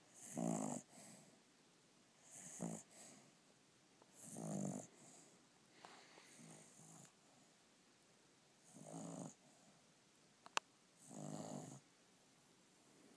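Slow, rhythmic snoring, about one snore every two seconds, each a short pulsing rasp. A single sharp click about ten and a half seconds in.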